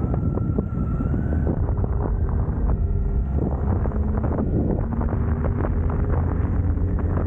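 Riding a BMW K1600 GTL motorcycle: wind buffeting the microphone over the inline-six engine's note, which shifts in pitch a few times.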